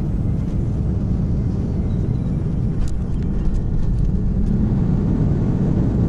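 Airliner cabin noise during landing: a steady low rumble of engines, airflow and runway, heard from a window seat over the wing as the plane touches down and rolls out with its spoilers raised. A few faint clicks come near the middle, and the rumble grows slightly louder towards the end.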